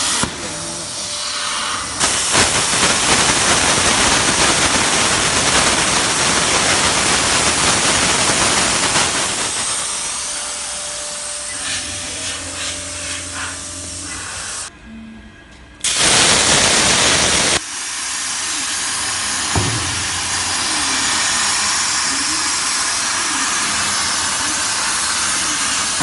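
CNC gantry plasma cutter's torch hissing steadily as it cuts. The hiss drops out briefly about fifteen seconds in, comes back louder for a second or two, then settles again.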